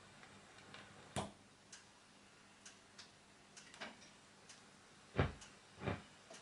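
NSM ES160 jukebox's record-changer mechanism clicking and ticking as it returns the played single to the record magazine, with a few louder clunks, the loudest about five seconds in.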